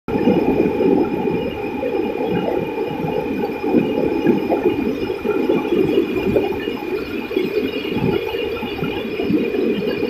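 White water of a stream rushing over boulders in rapids: a dense, low rumble that rises and falls unevenly, with a faint steady high-pitched whine above it.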